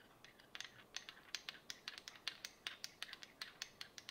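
Metal spoon clicking and scraping against a small glass jar, about five quick strokes a second, while stirring coconut oil into a little body lotion that will not blend and stays grainy.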